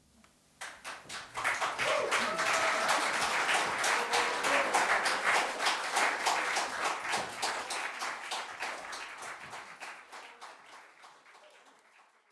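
Audience applause. It starts about half a second in, swells within a second, then dies away over the last few seconds.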